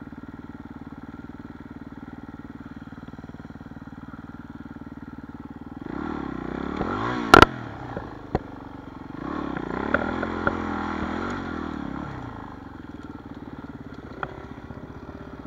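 Dirt bike engine idling steadily, then revved up and down twice, about six and nine seconds in, before settling back to idle. A sharp knock, the loudest sound, comes during the first rev.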